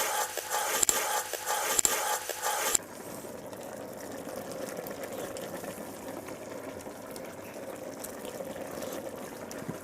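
Water poured into a pan of cooking vegetables for nearly three seconds, stopping suddenly; after that the pan simmers steadily and more quietly.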